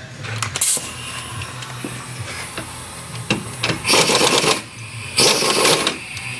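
Two short bursts of a pneumatic tool, each under a second, about a second apart, run while fastening strut hardware, with a few knocks and clicks of metal parts between them.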